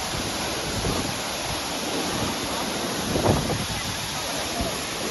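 Steady rush of falling water from the Thusharagiri Waterfalls cascades, with a short louder burst about three seconds in.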